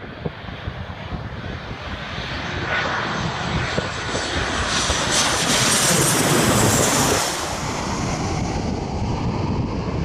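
Boeing 737-800's CFM56-7B jet engines on final approach, growing louder as the airliner passes low overhead about five to seven seconds in. A high whine falls in pitch as it goes over, and the sound then eases off.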